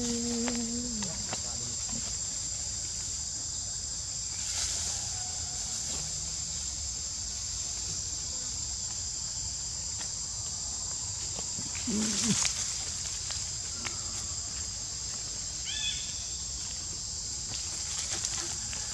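Steady high-pitched drone of insects in tropical forest, with a few brief calls over it: one low call about twelve seconds in and a short high squeak a few seconds later.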